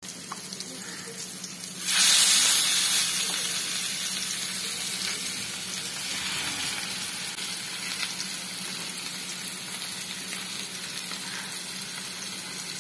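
Food frying in hot oil in a pan, a steady sizzle. About two seconds in, something goes into the oil and the sizzle suddenly gets loud, then slowly settles back to a steady sizzle.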